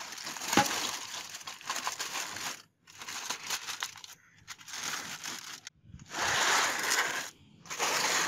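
Aluminium foil crinkling and crackling as it is handled, pressed and folded, in several spells with short pauses between them, with one knock about half a second in.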